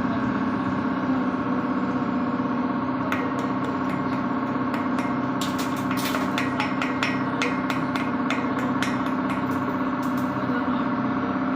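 Steady hum of a running machine, with a scatter of sharp clicks and ticks that starts about three seconds in and is thickest around the middle.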